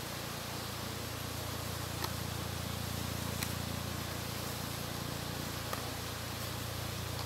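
Steady rushing of a fast-flowing river, with three faint clicks of a knife blade tapping a plastic plate while small onions are sliced.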